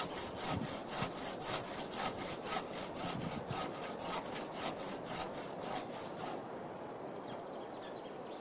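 Hand saw cutting through wood in quick, even back-and-forth strokes, about three or four a second, stopping about six seconds in.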